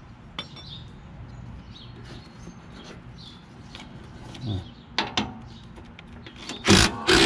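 Light metallic clinks of pulley hardware being handled and fitted, then a cordless impact driver fires two short bursts near the end, running down the lawn tractor's idler pulley bolt.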